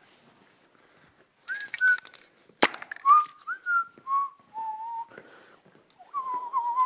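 A person whistling a short tune: a run of held notes that step lower, then a higher wavering phrase near the end. A single sharp click about two and a half seconds in.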